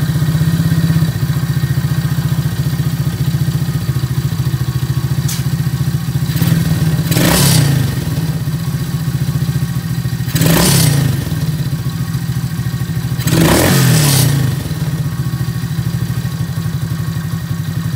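A 110–125 cc ATV's single-cylinder four-stroke engine idling steadily while its carburetor idle screw is turned down a little, after a carburetor cleaning. The engine revs up briefly three times, about three seconds apart.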